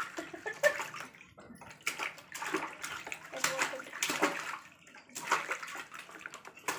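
A toddler's hands splashing and slapping the water in a plastic tub, in irregular bursts.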